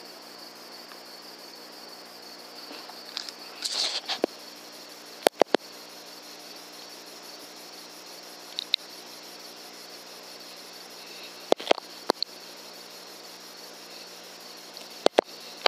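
Crickets chirring steadily in a summer night field. About four seconds in there is a brief rustle, followed by three pairs of sharp clicks spread through the rest.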